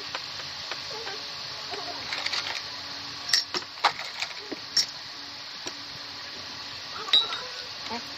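Cola poured from a glass bottle into a drinking glass, with several sharp clinks of glass on glass, then a ringing clink near the end as the bottle is set down.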